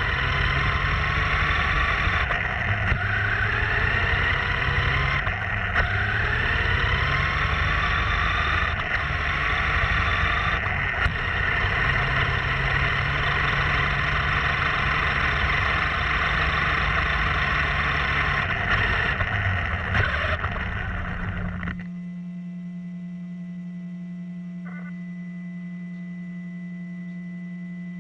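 RC monster truck's motor whining and rising and falling in pitch with the throttle, under a rough wash of wind and driving noise. About 22 seconds in it cuts off suddenly, leaving a steady electronic hum.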